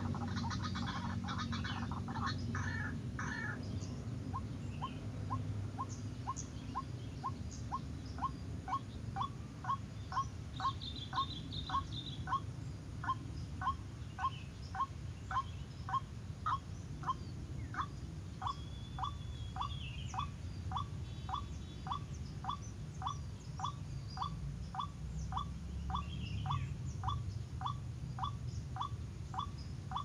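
White-breasted waterhen calling: a burst of harsh croaking at first, then a long run of single notes repeated about twice a second. Faint small-bird chirps sound above it.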